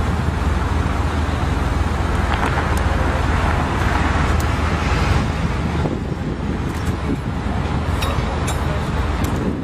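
Road traffic passing close by, with a steady low rumble and wind on the microphone; one vehicle swells past a few seconds in. A few light clicks near the end.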